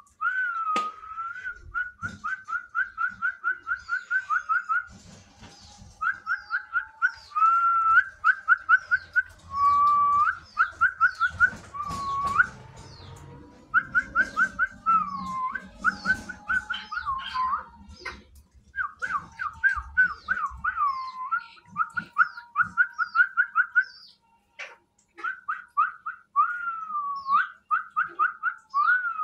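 Whistled trilling tune: quick runs of short rising notes on one pitch, about eight a second, broken now and then by a swooping slide down and back up, repeating over and over with a few short pauses.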